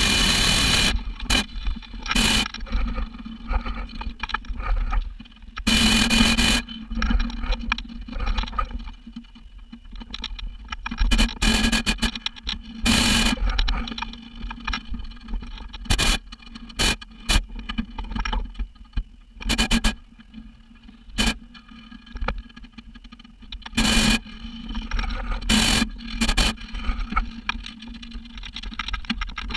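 Hot air balloon's propane burner firing in repeated blasts, each a harsh rushing roar, most under a second and a few longer, over a low rumble.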